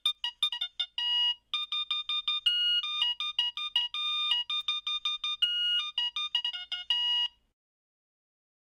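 A fast electronic beeping tune of short, high notes at changing pitches, which stops suddenly about seven seconds in.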